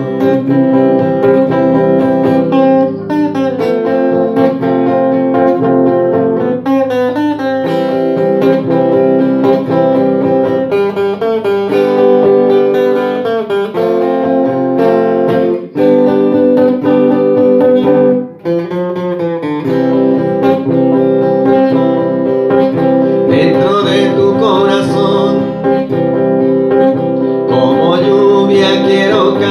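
Electric guitar playing an instrumental break of a slow ballad over long held chords.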